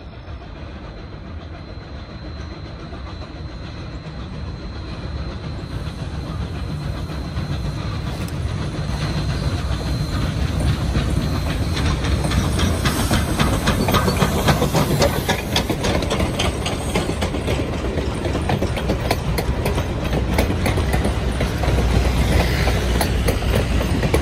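Coal-burning steam locomotive working hard as it approaches and passes, growing louder over the first ten seconds. Then its passenger cars roll by with wheels clattering over the rail joints.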